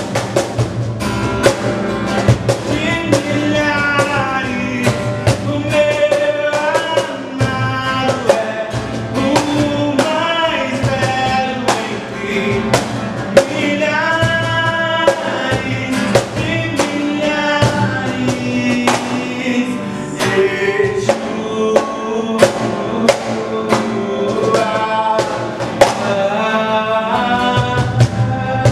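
A man singing a worship song while strumming a steel-string acoustic guitar, with a steady strummed beat under the voice.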